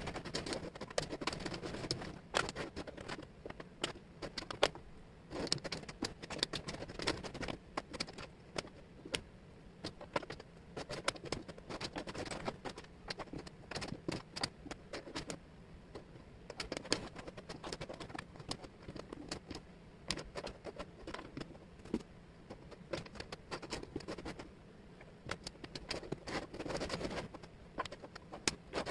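Small wooden jigsaw puzzle pieces clicking and clattering on a tabletop as hands pick them up, drop them and slide them about. It is a fast, irregular stream of light taps with short sliding scrapes.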